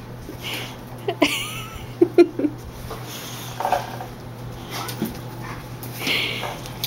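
Two boxer dogs play-fighting, with a brief rising whine about a second in and a few short vocal sounds around two seconds in.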